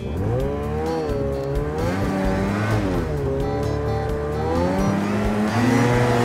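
Vehicle engine sound effect revving up and down, its pitch rising and falling several times, getting a little louder near the end, for an animated tracked snow vehicle.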